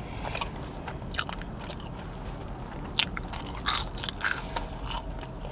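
A person chewing a mouthful of burger and French fries close to a clip-on microphone, with a few short crisp crunches scattered through; another fry goes into the mouth about four seconds in.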